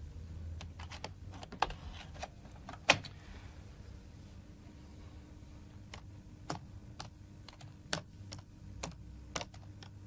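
Laptop keyboard being typed on: irregular, spaced-out key clicks, with two louder keystrokes about one and a half and three seconds in.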